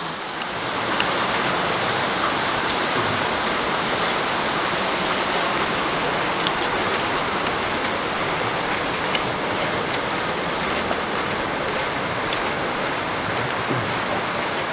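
Steady rush of Bright Angel Creek flowing beside the trail, swelling about a second in and then holding.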